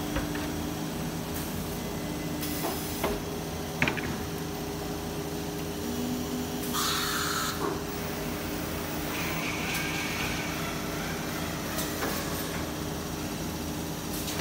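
Holztek PRO-R1V9F CNC nesting router with automatic loader running, a steady machine hum with several fixed tones. A few sharp clicks and knocks come at about three to four seconds in, and a short burst of hissing air about seven seconds in, as the pneumatic suction-cup loader works.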